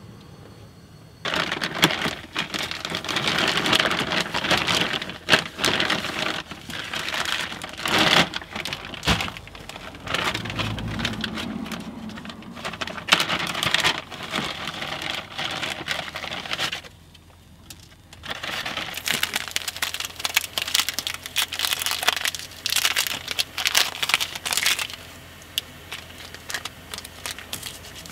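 Plastic packaging of a 24-hour military ration pack crinkling and rustling as it is opened and handled, with a short pause a little over halfway through and quieter handling near the end.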